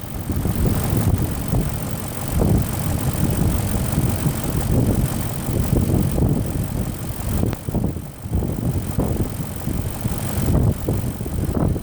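Range Rover 4.4 V8 petrol engine running, with a rough, uneven rumble. The engine is suspected of an ignition misfire.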